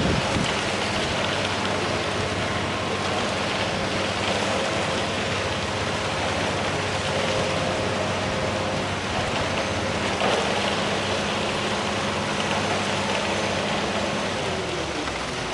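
A heavy vehicle engine running steadily under a dense, rain-like hiss. The engine tone drops away near the end.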